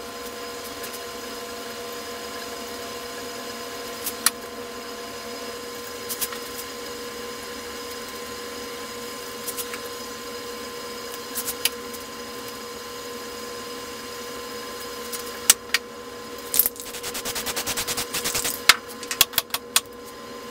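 A steady mechanical hum, with occasional sharp scrapes and clicks of a flat paint scraper working across painted poster board. Near the end comes a stretch of rapid rasping scraping strokes.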